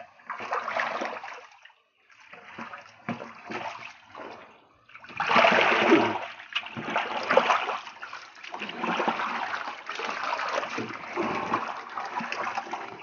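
Water splashing and sloshing in a large galvanized metal tub as a plastic basket is swept through it to scoop out fish. It comes in uneven bursts, loudest about five seconds in.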